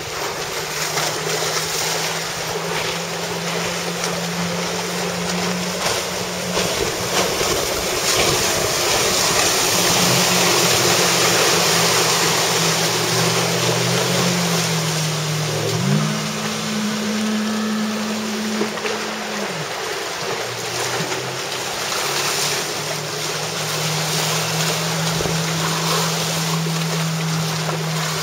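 A pontoon boat's 115 hp four-stroke outboard running at speed through choppy water: a steady engine drone that rises in pitch a little past the middle, holds for a few seconds, then drops back. Under it is a loud, even rush of wind and waves.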